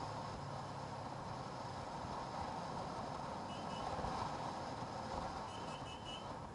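Motorcycle running at road speed, heard from the rider's own bike: a steady mix of engine and wind noise. Faint short high beeps come once about halfway through and in a quick run near the end.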